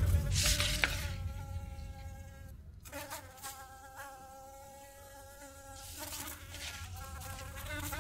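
A flying insect buzzing in a steady drone, breaking off briefly before the middle, over a low rumble. Paper rustles near the start.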